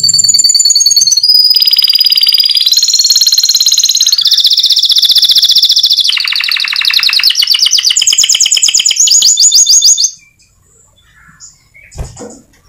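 Domestic canary singing a long, loud song of rapid trills, each a fast run of repeated notes, shifting to a new trill every second or two, before it stops abruptly. A few faint chirps and a short knock follow near the end.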